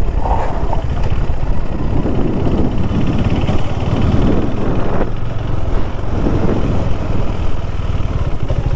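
Motorcycle engine running steadily at low speed, with a dense low beat.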